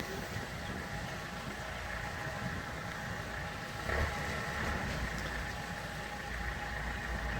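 Heavy machinery engine running steadily, with a constant whine over a low rumble that swells about four seconds in and again near the end.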